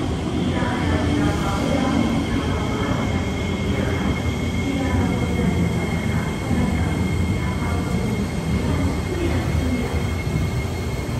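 SMRT C751B electric metro train standing at the platform, humming steadily with a thin, steady high whine over it, and faint voices in the background.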